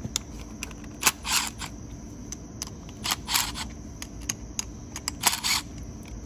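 Several short bursts of rapid, sharp clicking, like a ratchet or small metal parts, in three or four clusters about two seconds apart.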